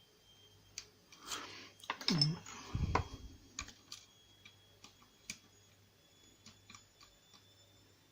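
Lock picks working a Euro pin-tumbler cylinder, with light metal clicks and ticks. A denser run of scraping and clattering comes about one to three seconds in, ending in a low thump.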